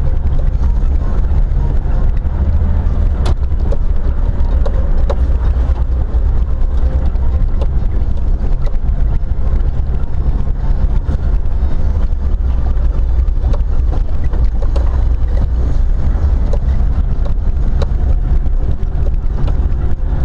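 Vehicle driving on a rough track, heard from a camera on the outside of the hood: a steady low rumble of engine and tyres with scattered knocks and rattles.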